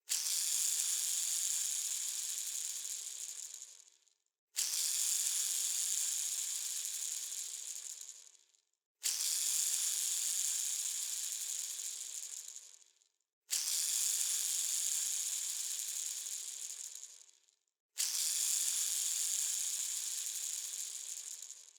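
A bearing spun over and over, giving a high whirring sound. Each spin starts suddenly and dies away over about four seconds as it runs down, about five times, one every four and a half seconds.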